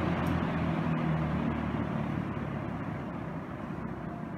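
Dayton Model 4C418 20-inch box fan running, its airflow whoosh and motor hum gradually getting quieter as it slows down after being switched from medium to low speed.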